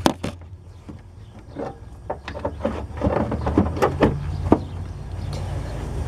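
Handling noise with a sharp click at the start, then a string of small clicks, knocks and rustles, busiest in the middle, over a low steady hum.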